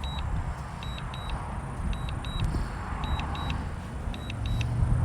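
Strong wind buffeting the microphone in a steady low rumble, with pairs of short high beeps about once a second from the drone's remote controller, warning during the DJI Neo's struggling return to home in wind gusting around 21 mph.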